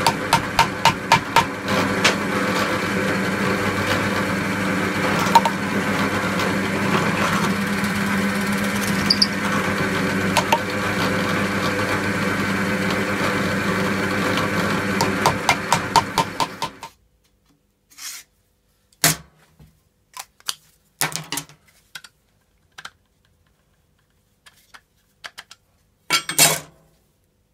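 Drill press motor running steadily while brass tube pins are tapped into a bog oak block with a plastic-faced mallet, a quick run of taps near the start and another about two-thirds through. The motor sound then stops abruptly, leaving a few scattered knocks of wood and metal parts handled on a workbench.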